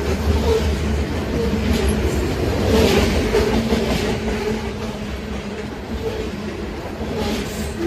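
Freight train of covered hopper cars rolling past close by at speed: a steady rumble and rattle of steel wheels on the rails, with brief surges as car trucks go by.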